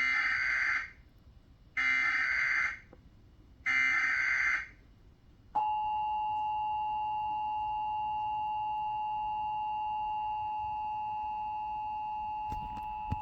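Emergency Alert System broadcast signal: three bursts of about a second each of the SAME header's buzzing data tones, which encode the alert, then after a short pause the steady two-tone EAS attention signal that announces an emergency alert.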